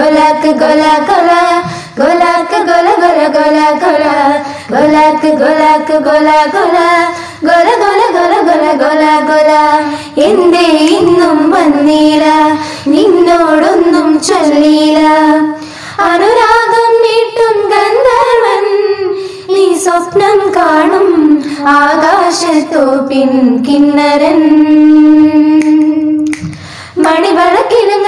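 Several women's voices singing a Malayalam song together in unison, in flowing melodic phrases with short breaks for breath and a long held note near the end.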